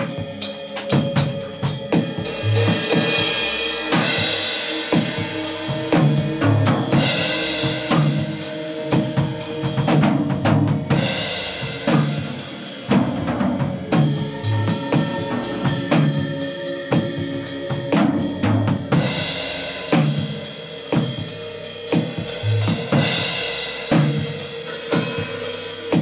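Acoustic drum kit played continuously in a fast groove: steady bass drum beats under snare hits and rimshots, with crash and ride cymbals washing over the top.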